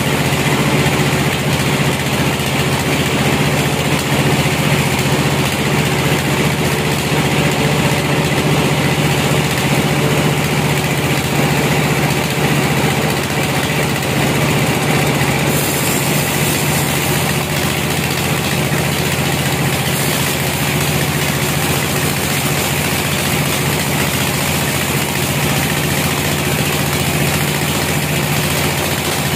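Band sawmill sawing lengthwise through a large hollow log: a loud, steady machine drone with a strong low hum.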